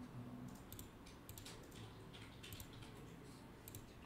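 Faint computer keyboard typing: short irregular clusters of keystrokes.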